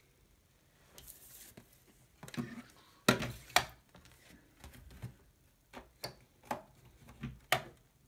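Handling noise of a cereal-box cardboard sheet being picked up and lined up in a paper crimper: a faint rustle, then two sharp knocks about half a second apart, followed by a scatter of lighter taps and clicks.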